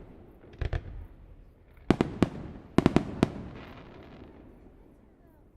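Aerial fireworks shells bursting overhead in quick clusters of sharp bangs, about eight in all, the densest run near the middle. Each burst trails off in a rolling echo that dies away toward the end.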